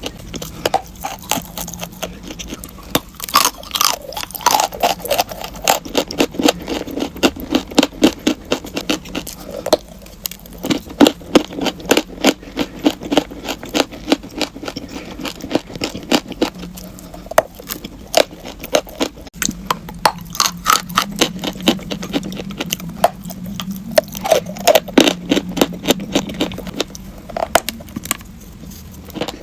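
Crunchy chalk being chewed close to the microphone: a fast, continuous run of sharp crunches, several a second.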